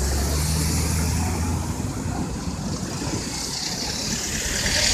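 Engine of a light box truck running with a low, steady hum as it passes close by, fading after about a second and a half. Street traffic noise follows, with a hiss that swells near the end.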